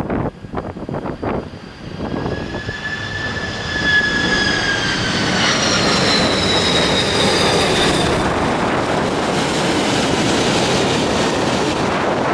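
Jet airliner passing low overhead on its landing approach: the engine roar swells while high whining tones slowly fall in pitch, then settles into a steady roar.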